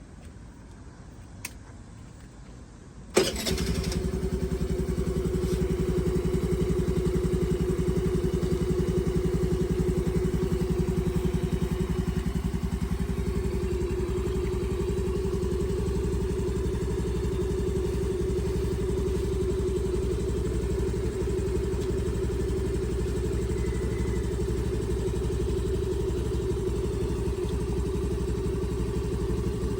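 Honda Navi scooter's small single-cylinder four-stroke engine starting about three seconds in and then idling steadily, run briefly after an oil change so the fresh oil circulates before the level is checked on the dipstick.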